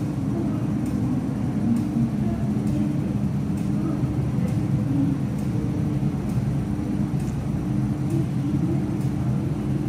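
MTR M-train electric metro train running into an underground station platform behind glass platform screen doors, a steady low rumble of wheels and motors.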